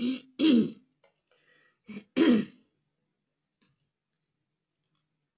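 Someone clearing their throat and coughing, in two short bouts about two seconds apart.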